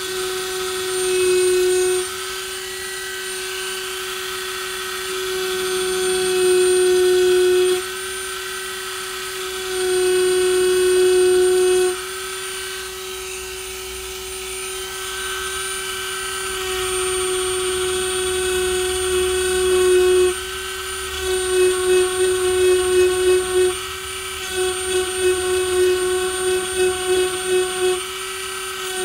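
Dremel rotary tool with a small round engraving bit spinning at about 20,000 RPM, a steady high whine that grows louder in several stretches as the bit bears on weathered, cracked wood. Over the last several seconds the whine pulses rapidly as the bit is worked in and out of the engraving.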